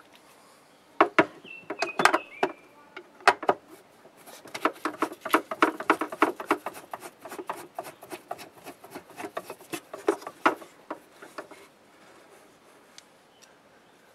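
A long screwdriver working out the screws that hold a hot-tub pump in its plastic housing: a run of sharp clicks and taps, rapid and dense in the middle, with a brief squeak about two seconds in.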